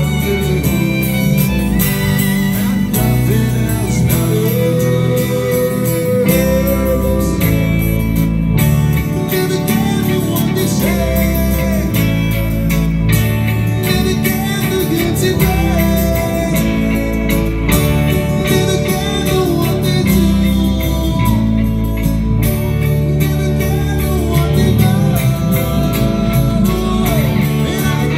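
Live rock band playing through a stage PA: a male singer's voice over acoustic and electric guitars with a steady beat.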